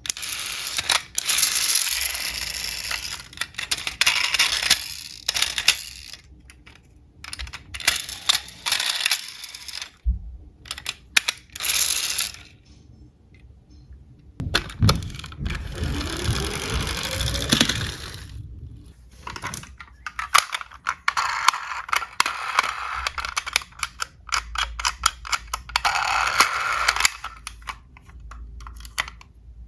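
Die-cast toy cars rolling and clattering, with rapid clicks and rattles of small metal bodies and wheels knocking together. A little past midway comes a whir that rises in pitch.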